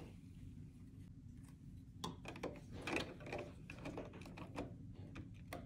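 Plastic Lego bricks clicking and tapping as pieces are handled and pressed onto the model, a run of small irregular clicks starting about two seconds in.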